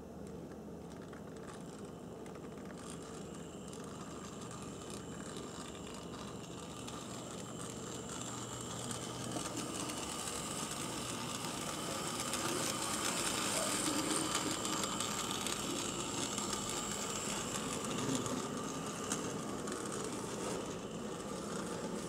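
Tenshodo brass HO-scale model of a JGR Neilson D9 4-4-0 steam locomotive running on track, its small electric motor and gears making a steady whir. The sound grows louder toward the middle as the engine comes close, then eases off.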